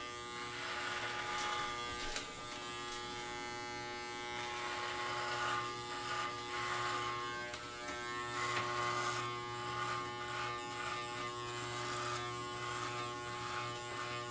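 Corded electric dog clippers running with a steady, even hum, their blades cutting through thick chest hair with an uneven, rougher sound that comes and goes as they are pushed through it.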